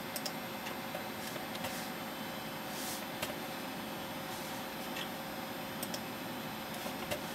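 Several soft, single clicks of a computer mouse button as desktop menus are opened and items selected, over a steady hiss with a faint hum.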